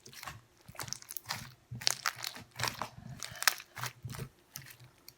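Slime packed with foam beads being squeezed and kneaded by hand, giving a run of irregular crunchy crackles and pops.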